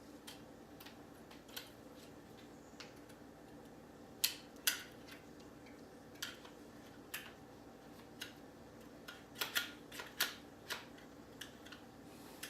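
Scattered clicks and light clacks of a Milwaukee M12 cordless crown stapler being handled as its staple channel is opened and loaded. Two sharper clacks come a little after four seconds in, and a quick cluster of them around ten seconds.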